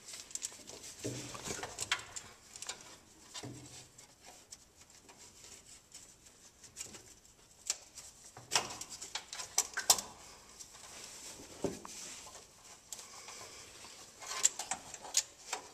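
Faint, scattered clicks and light scraping as a spin-on oil filter is turned loose by hand, with a few sharper taps about halfway through and again near the end.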